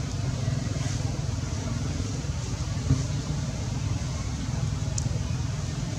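Steady low rumble of background noise, with a faint high hiss above it and one brief sharp tick about five seconds in.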